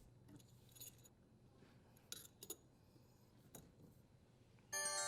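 Faint, scattered metallic clicks and clinks of a tool adjusting the dishwasher's leveling legs. Near the end, a louder ringing chime starts and holds.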